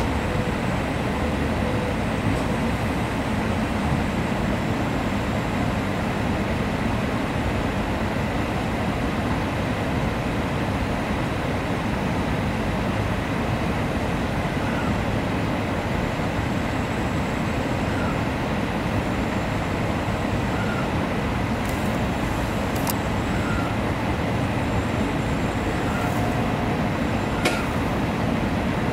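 Steady rumble and hiss of an N700-series Tokaido Shinkansen train heard from inside the passenger car as it runs slowly into a station on arrival, with a few faint sharp clicks near the end.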